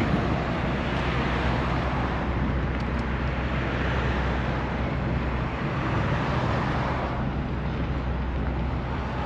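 Car in motion: steady engine and road noise with a constant low hum, heard from inside the cabin.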